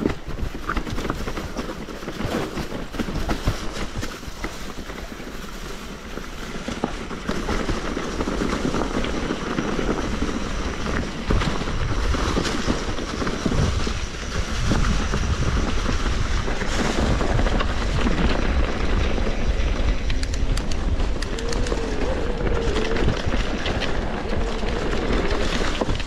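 Mountain bike riding over a rough dirt trail: the bike rattles and knocks continuously over bumps, over tyre noise and a heavy rumble of wind on the microphone. It gets louder about seven seconds in and again halfway through, as the pace picks up.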